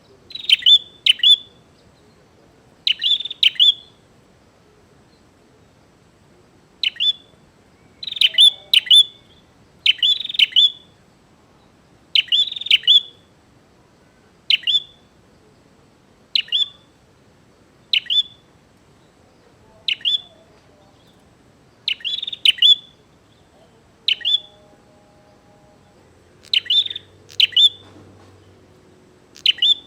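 Prinia (prenjak) calling in full voice, a challenging territorial call: sharp, high chirps in quick clusters of one to three, repeated every second or two.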